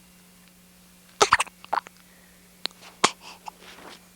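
A young girl hiccuping: sharp, sudden catches about a second in and again around three seconds in, with smaller ones between.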